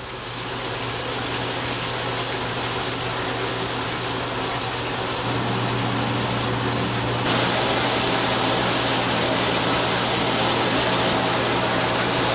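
Steady rush of running water with a low hum underneath, stepping louder about seven seconds in.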